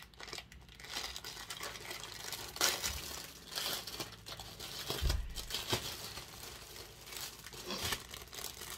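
Crinkly packaging being handled, crumpled and torn open in irregular rustles as an item is unwrapped, with a dull bump about five seconds in.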